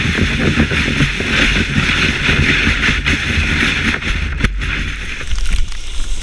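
Kayak hull sliding fast over snow: a steady hiss with low rumbling and small bumps beneath. A sharp knock comes about four and a half seconds in, after which the hiss thins as the bow ploughs through snow.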